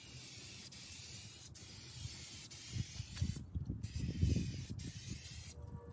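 Aerosol spray can of clear shellac sealer hissing as it sprays, cutting out briefly about halfway through and again near the end. A low rumble sits under the hiss in the middle.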